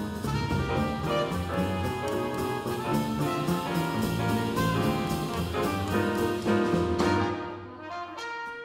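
Live jazz quartet: a trumpet plays a melodic line over piano, double bass and drum kit. The music dips in loudness about a second before the end.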